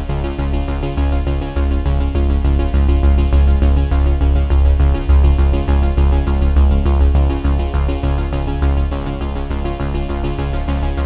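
Electronic background music with a heavy pulsing bass and held synthesizer tones.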